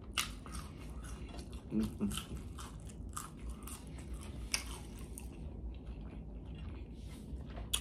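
A person chewing food, with sharp crunchy bites about once a second.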